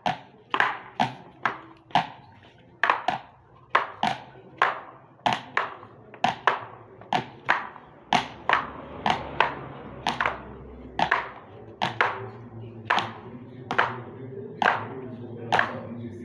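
Homemade percussion played in a steady rhythm: pencils tapping on a notebook and egg-carton castanets clacking, about two to three sharp taps a second.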